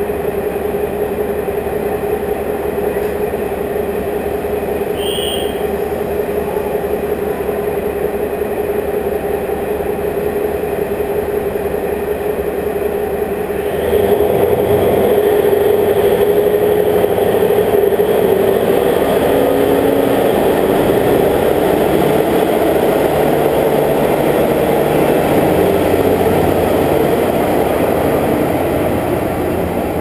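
Steady hum of a stationary train idling at the platform. About 14 seconds in, a louder rumble of a train pulling out on the neighbouring track joins it and carries on.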